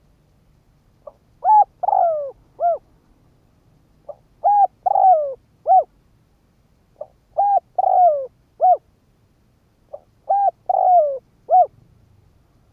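Spotted dove cooing: four identical phrases about three seconds apart, each a faint short opening note, then a coo, a longer falling coo and a short final coo.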